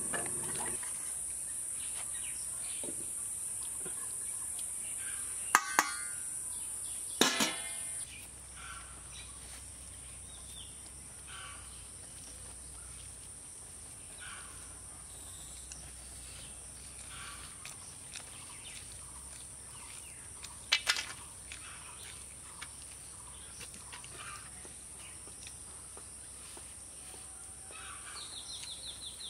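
Outdoor rural background: a steady high insect drone that stops about eight seconds in, broken by a few sharp clicks around six and seven seconds. Afterwards quieter open-air background with scattered faint bird chirps and a brief clatter about twenty-one seconds in.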